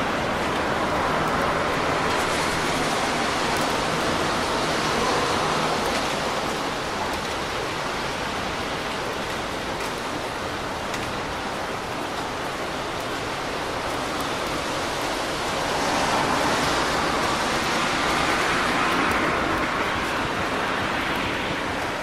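Steady rain falling on a city street, with the hiss of car tyres on the wet road swelling in the first few seconds and again about three-quarters of the way through as cars pass.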